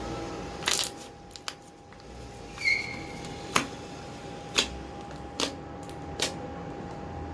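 Slime being squeezed and kneaded by hand, giving sharp clicking pops about once a second, one with a short squeak. A steady faint hum runs underneath.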